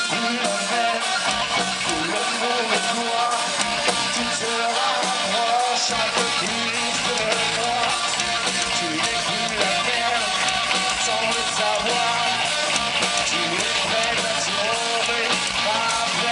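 Live rock band playing loud: electric guitars, bass and a drum kit.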